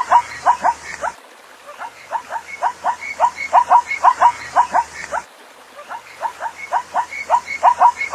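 Zebra calling: bouts of rapid, yelping barks, about four a second, each bout lasting about three seconds with a pause of about a second between them.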